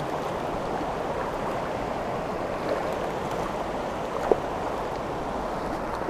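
Shallow river current rushing over stones, a steady wash of water close by, with one brief knock a little past four seconds in.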